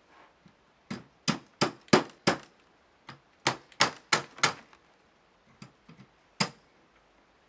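Sharp clacks from an AK-pattern rifle's lower handguard retainer lever being worked loose: two quick runs of four or five clacks each, a little over three a second, then two single clacks.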